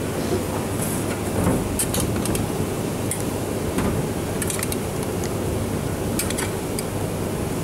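Steady background hum of a commercial kitchen, with scattered light clinks and taps of crockery and utensils as potatoes are moved from a metal pan into a small china bowl.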